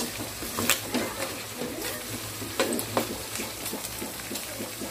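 Food frying in a pan and being stirred, the utensil clicking against the pan several times.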